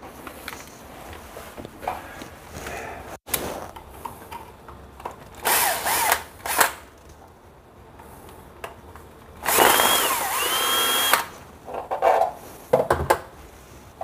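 Cordless drill-driver unscrewing the screws of a doorbell wall plate: a short run of the motor around the middle, then a longer run of about a second and a half whose whine dips in pitch and comes back up, followed by a few clicks.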